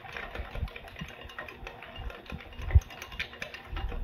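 Whisk stirring soy sauce and brown sugar in a glass measuring cup, its wires clicking and scraping against the glass in a quick, steady rhythm, with one louder thump near the end.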